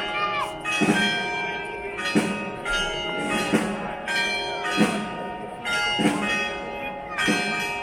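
Church bells ringing, struck in quick succession at a little under two strokes a second, each stroke's tones ringing on and overlapping the next.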